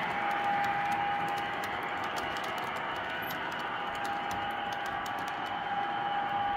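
O-gauge model passenger cars rolling along three-rail track: a steady rolling rumble with quick, uneven clicking of the wheels over rail joints and switch points, and a steady high hum that fades in the middle and comes back.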